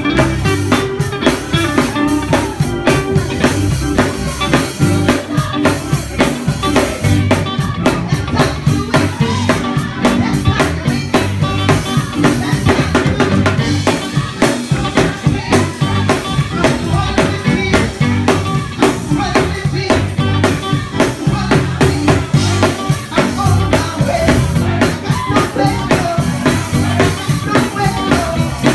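Live gospel choir singing over a steady, driving beat from organ and drum kit.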